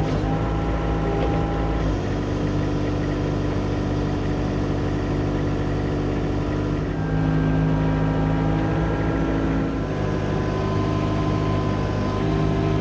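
John Deere excavator's diesel engine running steadily under load, its pitch and tone shifting about two, seven and ten seconds in as the hydraulic controls are worked.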